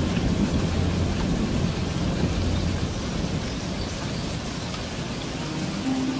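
Steady rain with a low rumble of thunder that fades out about halfway through. A few soft sustained musical tones come in near the end.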